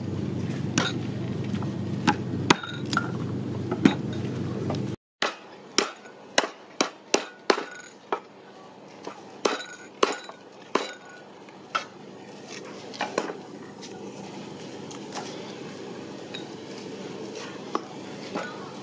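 Cleaver striking lemongrass stalks on a wooden chopping board: a run of sharp knocks, two or three a second at first, then more spaced out. Before it, a steady low hum with a few clicks stops suddenly about five seconds in.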